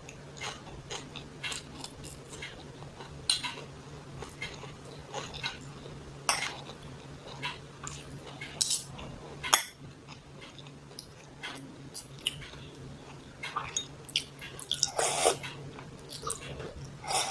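Someone eating close to the microphone: irregular chewing and mouth sounds with light clicks of cutlery against a dish, over a faint steady hum.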